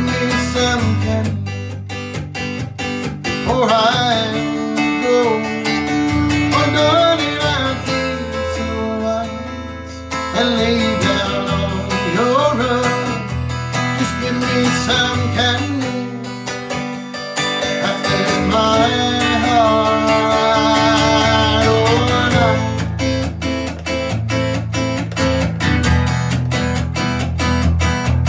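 An acoustic guitar song: guitar strumming steadily, with a wavering melody line coming in phrases over it.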